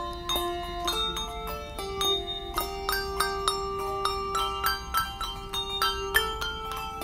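Handbell choir playing: many handbells struck in quick succession, each note ringing on and overlapping the next so that several pitches sound together.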